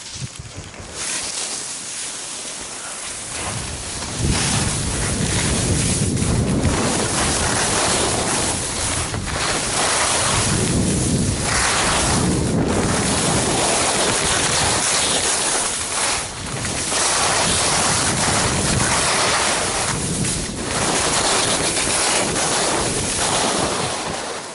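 Wind buffeting the microphone of a skier's camera, over the hiss and scrape of skis on packed, chopped-up snow. It grows louder about four seconds in and then swells and eases every few seconds.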